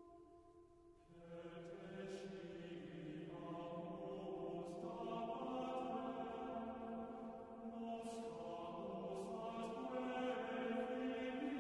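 Background music: a slow vocal chant with long held notes, a new phrase coming in about a second in.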